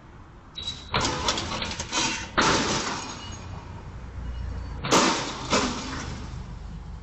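Tall metal street pole crashing down onto the road: a loud crash about a second in, a louder crash with breaking, shattering noise at about two and a half seconds, and another crash near five seconds, each trailing off into clatter over a low rumble.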